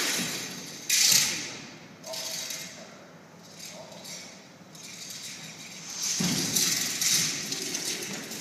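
A wushu spear being swung and struck through a routine, with its whooshes and the athlete's feet thudding and sliding on the carpeted floor. There is a sharp hit about a second in and a longer, louder burst of movement near the end.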